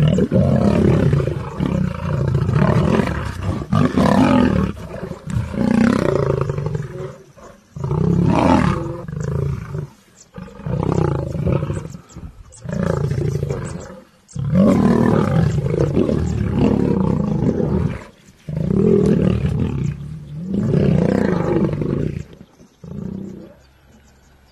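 Male lions roaring in a fight: a long string of loud, deep roars, each lasting a second or two with brief breaks between, which die away shortly before the end.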